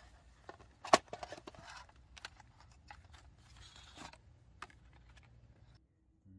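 A metal watercolour paint tin being handled and opened on a sketchbook: one sharp metallic click about a second in, then a run of lighter clicks, taps and rustles.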